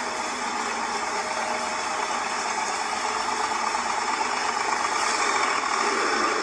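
Chevrolet 327 small-block V8 (a 1962 Corvette engine with a four-barrel carburetor and solid-lifter cam) running in a T-Bucket hot rod, growing a little louder toward the end.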